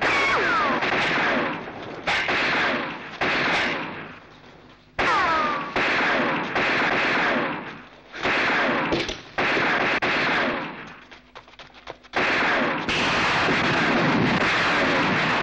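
Film-soundtrack gunfire: bursts of rapid shots with falling ricochet whines, each burst lasting a second or more and separated by short breaks, with a longer lull about four seconds in and another near eleven seconds.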